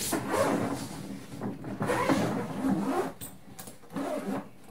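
Zip on a hard-shell suitcase being drawn open around the case, a rasping run in a few long pulls with short pauses between them.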